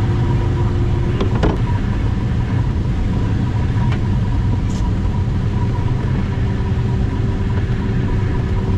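Steady low rumble of air rushing past a glider's cockpit on a low final approach, with a steady thin tone running through it and a single click about a second and a half in.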